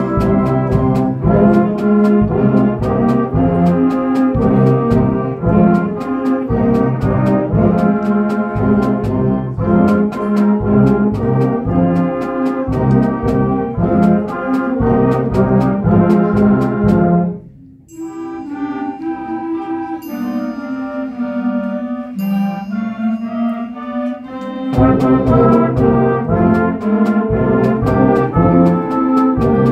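School concert band playing, with brass to the fore. A little past halfway the full band drops out suddenly for a thinner, quieter passage of a few instruments with some light high percussion strikes, then the full band comes back in.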